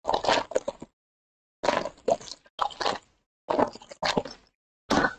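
Foil wrapper of a Panini Contenders football card pack crinkling and tearing as it is ripped open by hand, in about five short crackling bursts with brief pauses between.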